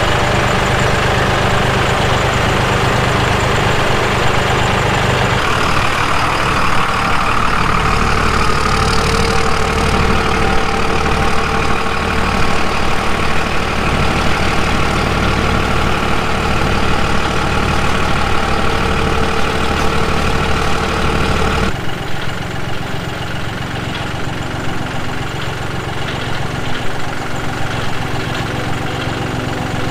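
An engine running steadily. Its pitch and tone change abruptly about five seconds in and again about 22 seconds in, and it is a little quieter after the second change.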